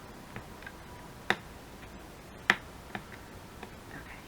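Two sharp clicks a little over a second apart, with a few faint ticks around them, from small craft hardware and tools as brads and eyelets are fitted into paper envelopes.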